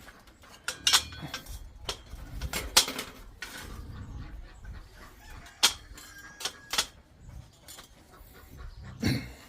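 Irregular sharp clinks and knocks, about a dozen, some with a brief metallic ring, in the manner of metal items being picked up and set down.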